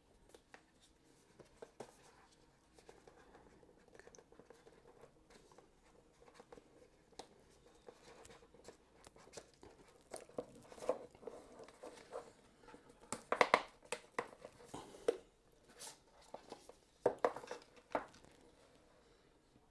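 Cardboard product box being handled and opened: rustling and scraping of card with small clicks, louder in the second half, with the loudest scrapes about two-thirds through and again near the end as the lid slides off and the inner tray is lifted.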